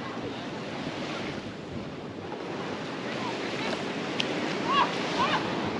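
Ocean surf washing steadily, with wind on the microphone; brief faint voices near the end.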